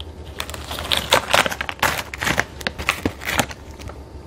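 Foil-lined snack packet crinkling as it is held open and handled, a run of short, sharp, irregular rustles.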